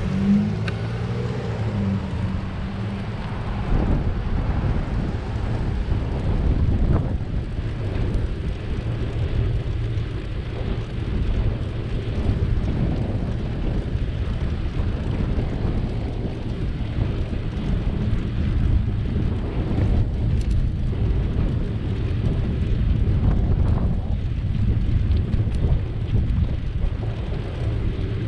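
Wind buffeting the microphone of a bicycle-mounted camera, heard as a steady rumble that swells and fades, mixed with road noise from riding on pavement.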